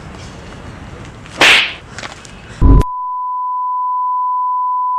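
Edited-in sound effects: a quick swoosh, a short thump, then a steady high-pitched beep tone that begins a little under three seconds in and holds without change.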